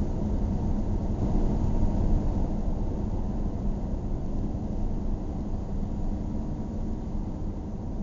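Steady low rumble of a car on the move, engine and tyre noise together with a faint steady hum, getting a little quieter through the second half.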